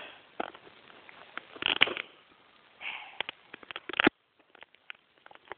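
Sticky gaffer tape and a cardboard toy box being picked at and handled by hand: a run of small crackles and clicks with a few brief scratchy bursts. After about four seconds only faint ticks are left.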